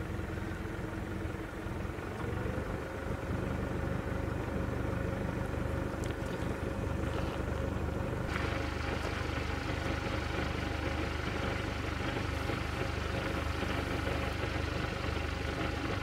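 An engine running steadily at idle, its hum stepping up slightly in pitch about two seconds in and then holding even.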